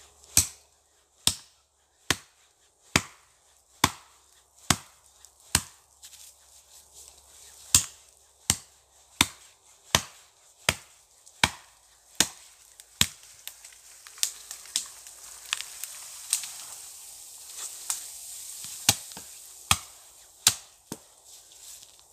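Axe chopping into the trunk of a moist, green poplar tree: a steady run of sharp strikes, a little under one a second, with one short pause about six seconds in.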